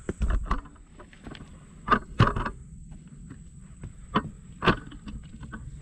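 A hiker's footsteps on a footbridge: a handful of irregular thuds and knocks as the bridge is crossed, called sketchy.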